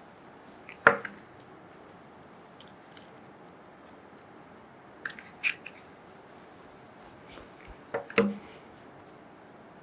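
Scattered small clicks and taps of craft materials being handled on a tabletop. The loudest comes about a second in, and a close pair of taps falls near the eight-second mark.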